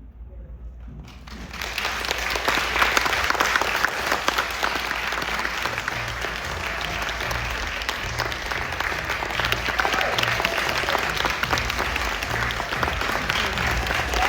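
Audience applauding. The clapping breaks out about a second and a half in and keeps up steadily.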